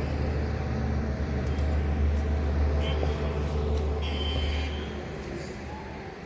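Low, steady rumble of a passing motor vehicle's engine, fading away about five seconds in, with a few faint short chirps above it.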